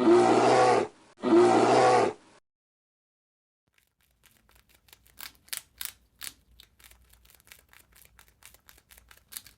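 An animal call given twice, each loud call lasting just under a second with a short gap between. After a pause, a long run of irregular sharp clicks and crunches follows.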